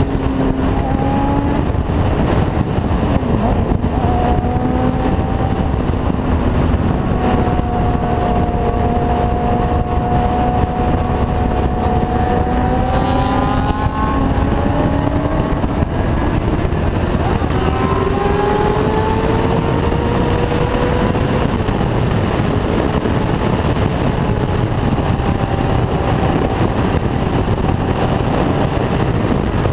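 Motorcycle engine running at highway speed, its note slowly rising and falling in pitch with the throttle, under a heavy rush of wind on the microphone.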